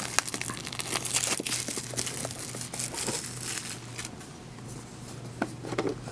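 Plastic wrapping on a pack of football trading cards crinkling and tearing as it is opened, with many small sharp clicks and rustles.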